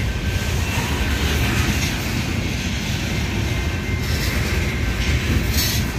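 Freight train of open-top hopper cars rolling past close by: a steady rumble of steel wheels on the rails, with a brief rise in high-pitched noise near the end.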